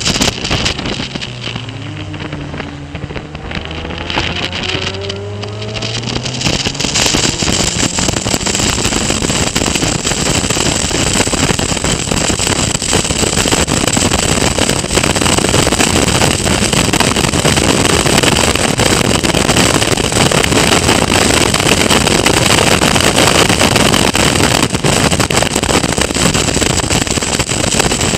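Caterham Academy race car heard onboard: the engine drops back near the start, and its note falls and then climbs again through a slow corner. From about six seconds in it runs at full throttle under a steady loud rush of wind on the microphone.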